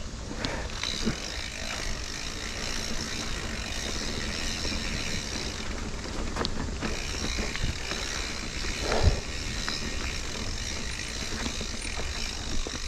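Mountain bike riding over a rocky trail: steady tyre and frame rattle with a low rumble, and a few sharp knocks from rocks, one about six seconds in and another about nine seconds in.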